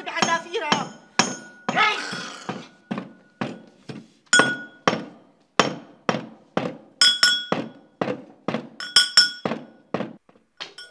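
Brass pestle pounding in a brass mortar to grind mahlab: steady strikes about two a second, each a short clang with a ringing metallic tone.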